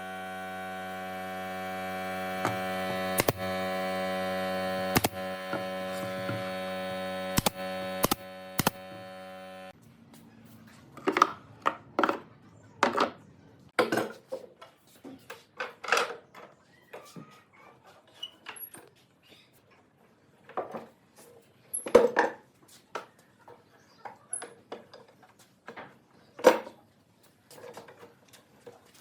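An electric power tool's motor runs with a steady hum and a few sharp clicks, then cuts off suddenly about ten seconds in. After that come scattered knocks and clinks of tools and wood being handled.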